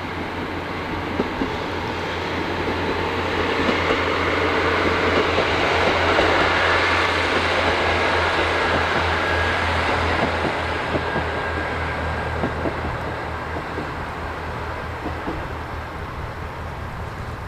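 Diesel train passing along the track, its sound swelling to a peak about six to ten seconds in and then fading, with scattered clicks from the wheels.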